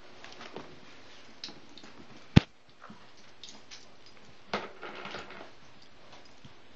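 A cocker spaniel puppy playing on carpet: small scuffling, pattering and chewing noises, with one sharp loud click about two and a half seconds in and a brief louder scuffle near five seconds.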